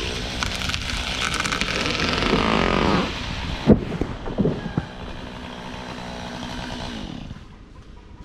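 Chainsaw cutting at full throttle, then easing off about three seconds in. A few sharp, loud cracks and thumps follow, then the saw idles on until it fades near the end.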